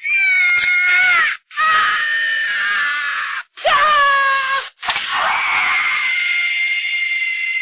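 Scrat's high-pitched cartoon screams: three short screams that each slide down at the end, then a long held scream that slowly fades.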